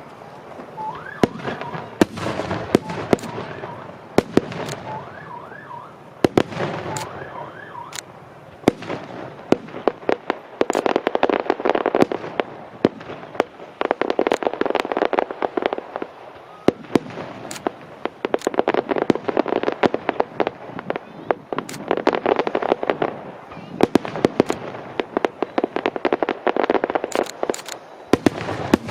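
Aerial fireworks display: sharp shell bursts and dense rolling crackle in repeated waves. Through the first several seconds a wavering high tone rises and falls repeatedly under the bangs.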